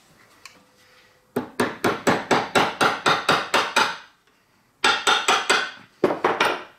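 Rapid hammer taps on metal, about five a second, in three runs: a long run of around a dozen blows, then two shorter runs. Each tap is sharp and rings briefly.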